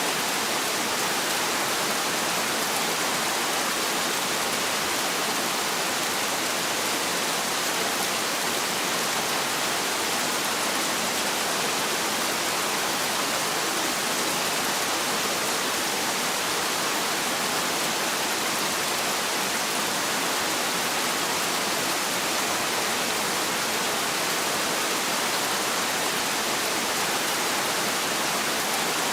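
Heavy rain falling steadily, a dense, even hiss with no thunder.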